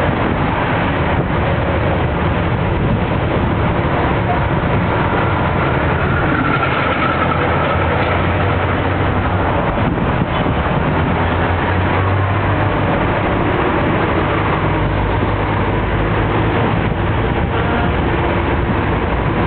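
A jeepney's engine running with road noise, heard from the back of the moving vehicle: a loud, steady drone whose low engine hum strengthens from about halfway through.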